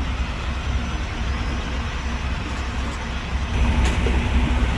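Semi-truck diesel engine idling with a steady low rumble, with one brief click near the end.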